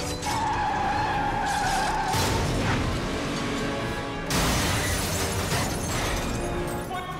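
Film action soundtrack: dramatic score under a long, high squeal early on, then a sudden loud crash of a car being smashed about four seconds in.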